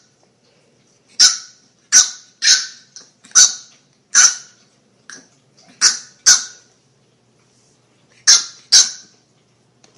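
A dog barking: about nine short, sharp, high barks, some single and some in quick pairs, with pauses between them.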